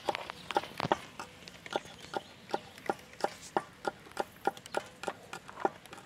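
Kitchen knife chopping peeled garlic cloves on a wooden cutting board: a steady rhythm of sharp taps, about three a second.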